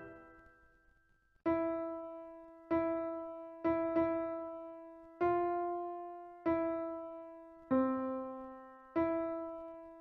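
Piano playing a slow, quiet line of single notes: eight notes, roughly one every second and a quarter, mostly repeating the same pitch, each struck and left to ring and fade. Near the start the last loud chords are still dying away.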